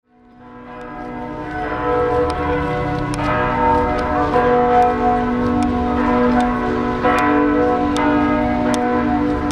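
The Zuiderkerk's church tower bells ringing in full peal: many overlapping bell strikes and ringing tones, fading in over the first two seconds.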